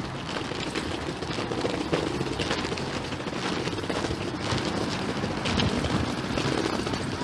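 Street noise with a continuous rattling crackle, including vehicles on the cobbled roadway.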